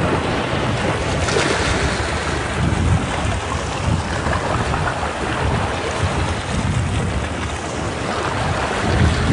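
Ocean waves washing and breaking against rocks: a continuous surf wash over a low rumble, with one wave surging in more brightly about a second and a half in.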